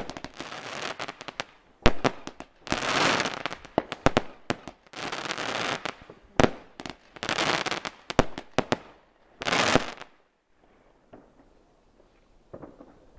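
A category 2 consumer firework battery firing shot after shot, about one every two seconds. Each shot is a sharp bang followed by about a second of crackling noise as the stars burst. The firing stops about ten seconds in.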